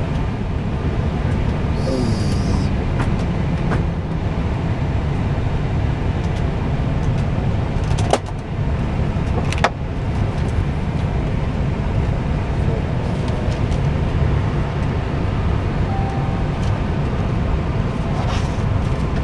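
Steady low hum and hiss of an Airbus A320neo cockpit standing on the ground, with a few sharp clicks about 8 and 10 seconds in and again near the end.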